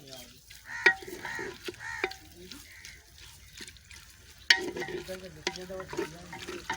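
Sliced onions frying and sizzling in oil in a clay handi while a spoon stirs them, with sharp knocks of the spoon against the pot, the loudest about a second in and again near four and a half seconds.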